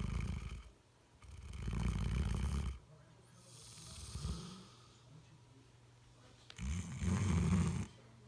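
Bloodhound snoring in its sleep. A snore is already under way at the start, another follows about a second in, and a fainter breath comes around the middle. The loudest snore comes near the end.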